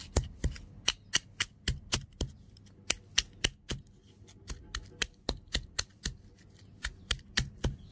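Granite pestle pounding cinnamon sticks in a granite mortar: a steady run of sharp knocks, about four a second, a little softer in the middle.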